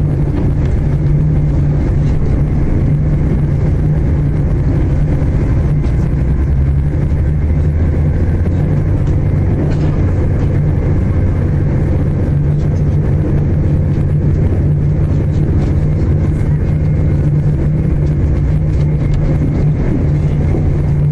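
Steady cabin noise inside a moving Class 221 Super Voyager diesel-electric train: a constant low drone from the underfloor diesel engine over the rumble of the wheels on the track.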